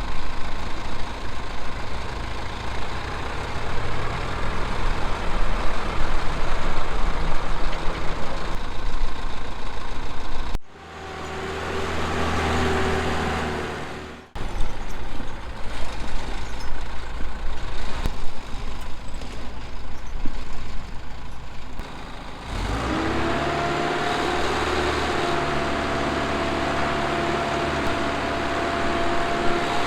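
Heavy diesel machinery running, heard in several abruptly cut segments. Partway through, a whine rises and falls for a few seconds, and the last stretch is a steady running drone with a held whine.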